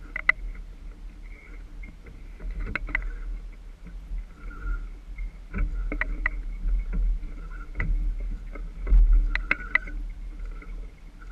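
Sailboat under way under sail, with a steady low rush of wind and water past the hull. Scattered sharp clicks and knocks from gear on deck come in small clusters, the busiest one near the end.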